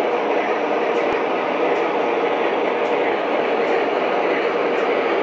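Steady diesel-locomotive rumble from an O gauge model train layout, with a constant hum and a faint tick about once a second.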